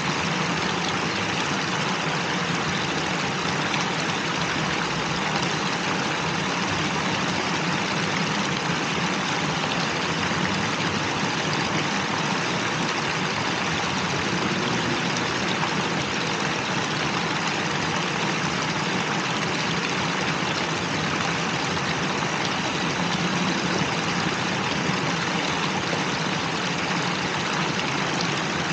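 Steady rush of water from a plaza fountain spilling down a curved stepped wall, an even, unbroken splashing.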